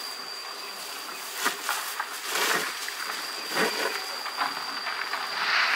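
A steady high-pitched insect drone in the field, with a few scattered rustles and knocks; the loudest rustle comes near the end.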